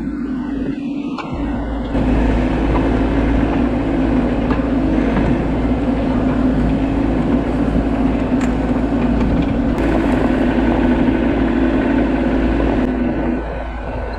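Bobcat E42 mini excavator's diesel engine running under working load, heard from the operator's seat. It gets louder about two seconds in and drops back near the end.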